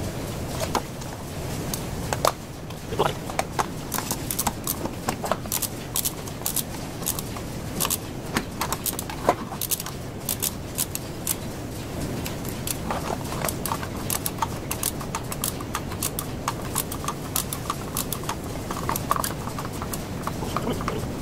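Irregular clicks, clacks and knocks of hard parts as a spring-return air hose reel is handled, turned over and taken apart, over a steady low background hum.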